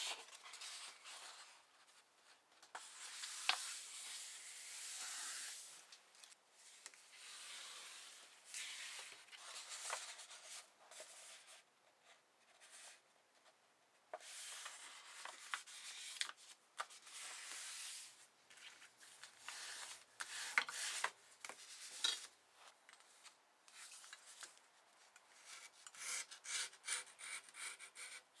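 Large sheets of paper being folded by hand: swishing and rustling as a sheet is lifted and laid over, and palms rubbing along the fold to crease it, in bouts separated by short pauses.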